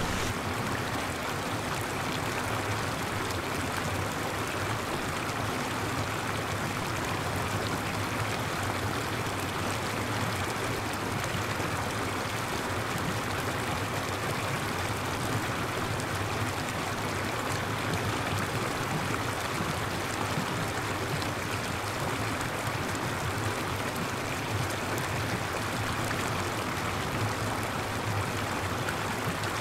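Water showering down from an overhead artificial-rain rig: a steady, even rush like heavy rain falling onto the ground.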